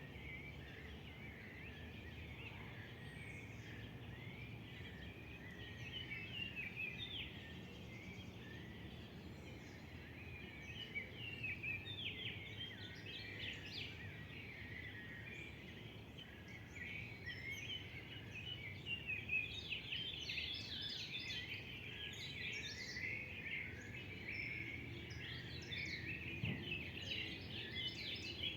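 Wild birds chirping and singing as a chorus of many short overlapping calls, busier in the second half, over a steady low background rumble.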